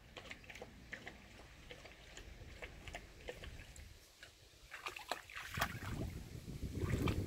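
Dog wading in a shallow stream: scattered small splashes and drips, then louder sloshing from about five and a half seconds in as it walks through the water.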